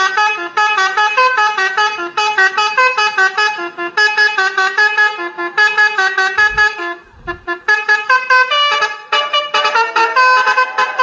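Telolet bus horn playing its tune: a fast run of stepped horn notes, several a second, with a short break about two-thirds of the way through before the melody starts again.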